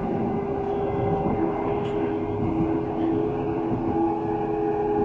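A Stadtbahn light-rail car running along its track, heard from inside the car: an even rumble of the wheels on the rails with a steady hum from the electric drive.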